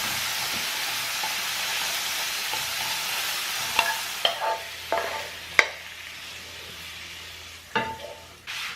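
Zucchini sizzling in hot oil in a frying pan as it is stir-fried. The sizzle drops away about halfway through, followed by a few sharp knocks of a utensil against the pan.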